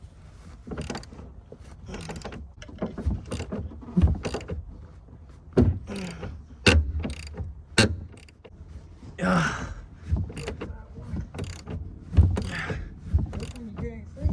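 Hand tools working on stuck truck-bed bolts: irregular metal clicks and knocks from a wrench on the bolts, with a few short scraping noises.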